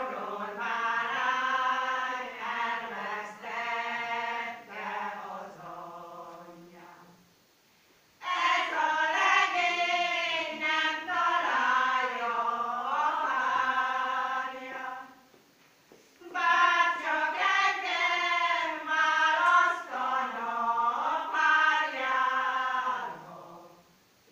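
A group of voices singing a Hungarian folk song in three long phrases, with short breaks for breath between them.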